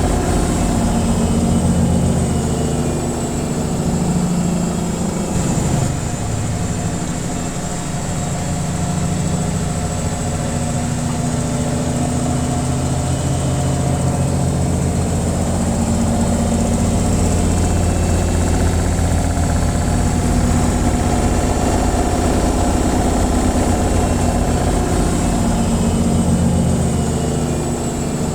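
Washing machine on its spin cycle: the drum spinning with a steady, loud low hum and vibration.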